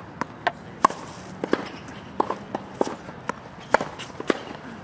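Tennis balls struck by racquets and bouncing on a hard court: a series of sharp pops and knocks at uneven intervals, the loudest a little under a second in.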